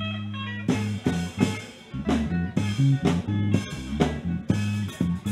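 Live band music: an electric bass guitar plays sustained low notes, then a drum kit comes in under a second in with a steady beat under the bass line and guitar. No singing yet.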